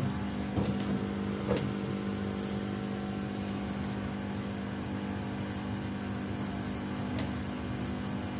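Samsung WW75TA046TE front-loading washing machine running with a steady hum, with a few sharp knocks or clicks: one about half a second in, another about a second and a half in, and one near the end. It is the machine noise the owner finds abnormal, which grows louder with each wash.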